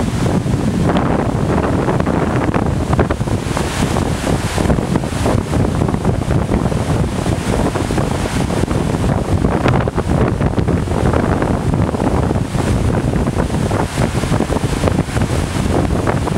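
Steady rushing of a big whitewater river rapid, with wind buffeting the microphone.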